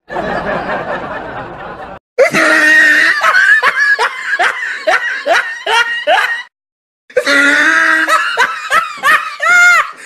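Laughter sound effect: two runs of quick, high 'heh' bursts, each rising in pitch, after a two-second rush of noise.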